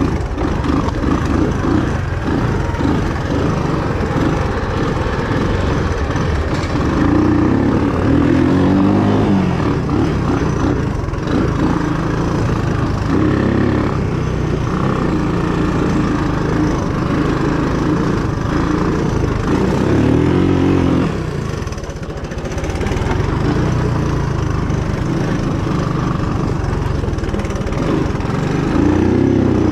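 Small vehicle engine running under a rider, its pitch repeatedly rising and falling as the throttle is opened and eased off.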